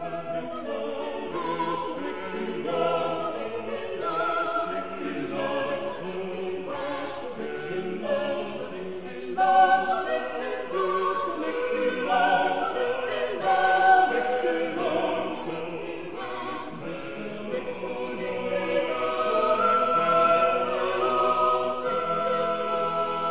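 A choir singing classical music, long held notes sung with vibrato.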